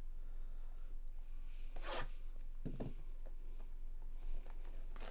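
Hands sliding and handling cardboard trading-card hobby boxes on a table: a short scraping swish about two seconds in, a couple of low bumps just after, and another brief swish near the end.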